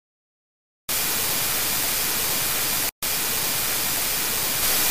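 Television static hiss: a steady rush of white noise that starts about a second in, cuts out for an instant near the middle, and comes straight back.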